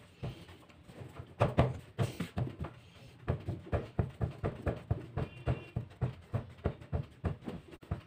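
Hand pressing and patting pizza dough flat on a countertop: a run of soft thumps, about two or three a second.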